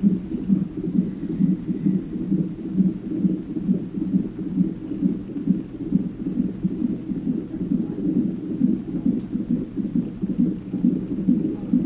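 Fetal heart monitor's Doppler speaker putting out the baby's heartbeat as a fast, even, low whooshing pulse during labor.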